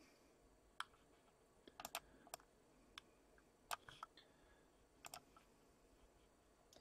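Faint, scattered clicks of a computer keyboard and mouse, some in quick pairs, against a near-silent room.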